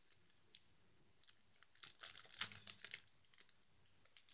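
Clear plastic packaging crinkling as it is handled: faint, with a few light clicks at first and a cluster of rustles in the middle.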